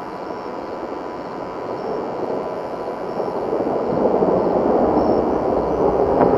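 A dense rushing noise with a faint steady tone in it, growing louder about four seconds in.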